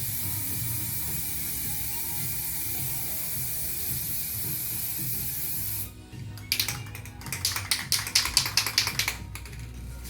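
Aerosol spray-paint can spraying white paint in one steady hiss for about six seconds, then a run of rapid rattling clicks for about three seconds, as from the can being shaken.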